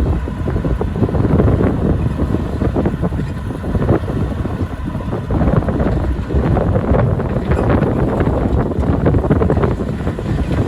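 A heavy diesel construction machine running steadily, with wind rumbling on the microphone and irregular knocks and clatter throughout.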